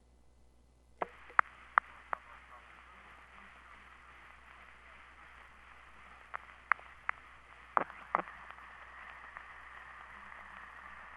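Playback of a phonograph cylinder recording: a steady, narrow, muffled surface hiss that starts about a second in, with scattered sharp clicks and pops from the groove.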